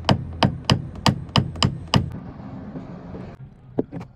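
Quick, sharp taps on a car's steel door panel during paintless dent repair, about three or four a second, pausing for over a second while a steady low hum runs, then a few more taps near the end.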